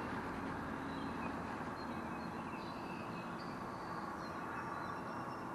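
Steady outdoor background hiss with faint, scattered high bird chirps.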